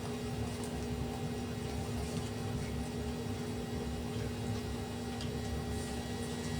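Steady background hum at several fixed pitches over a low rumble, with a few faint ticks: constant room or appliance noise.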